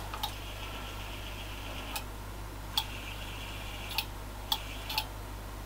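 Telescope's motorised focuser being driven in short spells to fine-focus, a thin high whine, with about five sharp clicks along the way.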